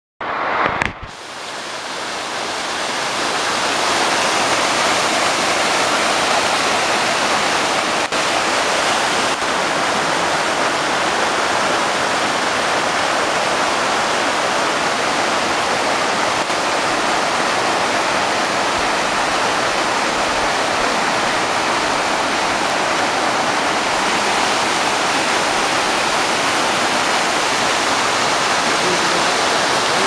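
Waterfall cascading down a rock face: a steady rushing of falling water that grows louder over the first few seconds, then holds even.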